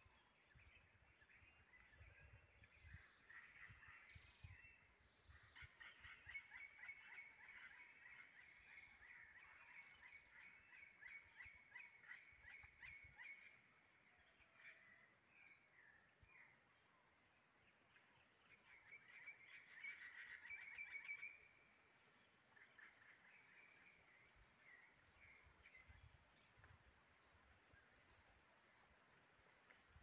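Faint parrots calling in fast runs of repeated notes, in two main bouts, over a steady high-pitched insect buzz. Low wind buffeting rumbles on the microphone now and then.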